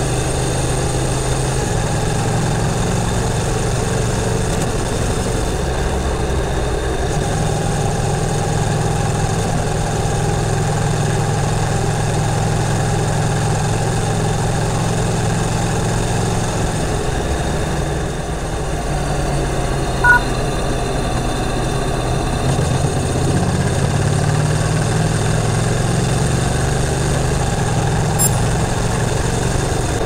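Honda NC700X's 670 cc parallel-twin engine running steadily while the motorcycle is ridden along a road, heard on board. Its note steps to a new pitch a few times, and there is one brief click about two-thirds of the way through.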